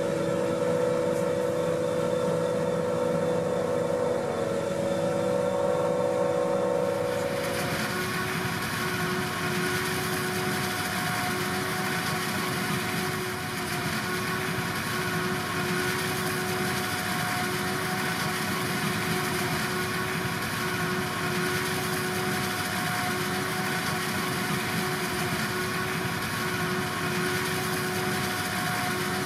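Diesel engines of silage-harvest machinery running steadily, with a continuous whine. About seven seconds in the sound changes abruptly to a lower steady tone with more hiss on top.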